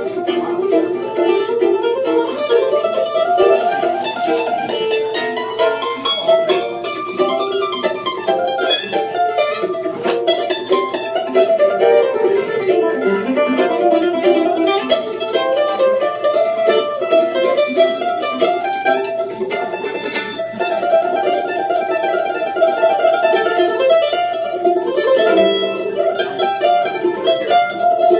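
An F-style mandolin played solo, a quick, unbroken stream of picked notes.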